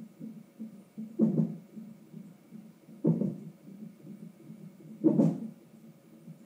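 Fetal monitor's Doppler sound of an unborn baby at 33 weeks hiccuping: three sharp thumps about two seconds apart over a steady low whooshing pulse.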